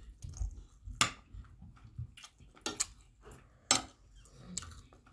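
Metal cutlery clinking and scraping against plates of rice as people eat, in a few sharp, separate clicks.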